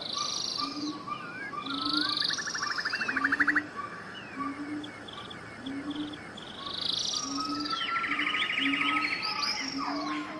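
Several birds calling at once: whistled chirps and rapid buzzy trills, over a low short note that repeats steadily about every three-quarters of a second.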